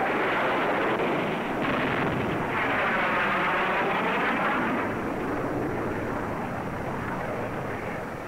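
F-100 Super Sabre jet fighter's engine noise as it fires a salvo of rockets, with the blasts of the rockets hitting the range mixed in. The sound jumps up about a second and a half in, and a sweeping whoosh comes as the jet passes.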